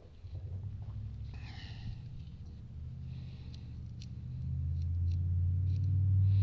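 Low, steady electric motor hum, likely the milling machine, growing louder about four and a half seconds in, with a short rustle and a few light clicks.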